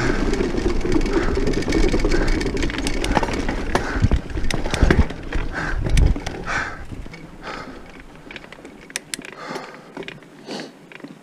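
Diamondback Mission 1 mountain bike rattling down a trail: tyre rumble and wind on the camera microphone, with frequent sharp clicks and knocks from the chain and frame over bumps, boardwalk planks and dirt. About seven seconds in the low rumble drops away, leaving scattered clicks and rattles.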